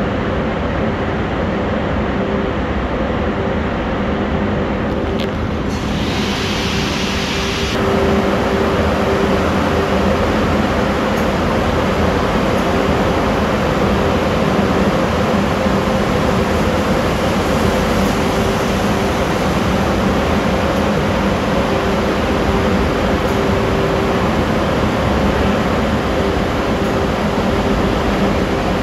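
Automatic car wash running: a steady machinery hum with spinning cloth brushes and water scrubbing over a car. A brief hiss comes about six seconds in, and the noise grows louder and fuller about eight seconds in.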